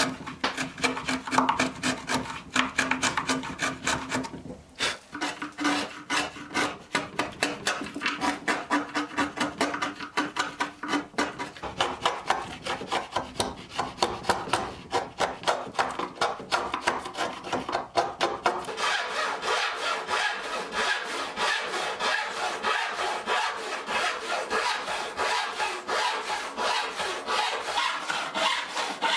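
A hand chisel paring and scraping out a groove in a pine board in quick repeated strokes. About two-thirds of the way through, a handsaw takes over, cutting through a pine board with steady back-and-forth strokes.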